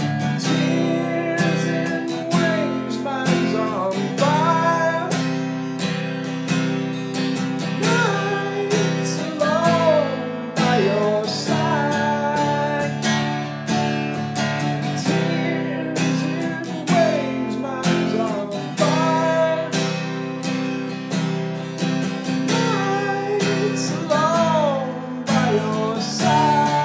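Acoustic guitar strummed steadily in full chords, with a wordless vocal line gliding over it.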